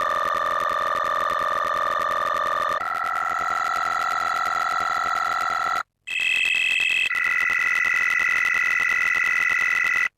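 Emergency-alert-style alarm tone: loud, steady electronic tones held as a chord. It shifts to a higher chord about three seconds in, breaks off briefly before six seconds, gives a short high tone, then settles on another held chord until it cuts off near the end.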